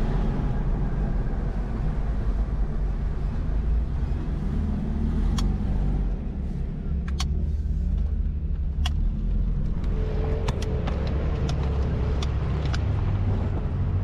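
A vehicle driving: a steady low engine and road rumble, with short sharp rattles or knocks now and then from about five seconds in.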